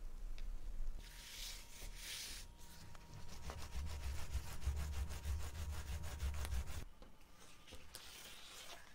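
Thread rasping as it is drawn through thick wool felt, then a roll of adhesive tape run along the felt strip. The tape peels off the roll with a rapid, even crackle for about four seconds.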